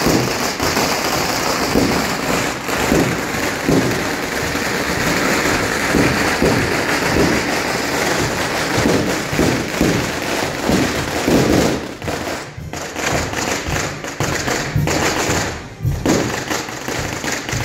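A long string of firecrackers going off in a dense, rapid crackle, with two brief lulls near the end.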